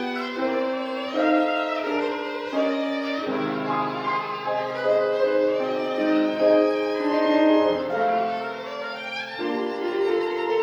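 A violin plays a melody of short, quickly changing notes over a piano accompaniment, whose lower notes sustain under the violin through the middle of the passage.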